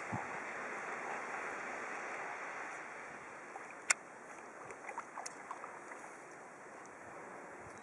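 A steady rush of river water that eases off after about three seconds, then a sharp click about four seconds in and a scatter of small splashes and drips as a Yorkshire terrier wades through rocky shallows.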